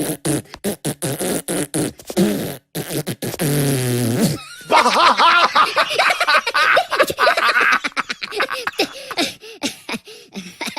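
Cartoon fart sound effects: a rapid run of short sputtering blasts, then a longer one that drops in pitch and ends about four seconds in, followed by a dense stretch of fast warbling, bubbling noises that thins out toward the end.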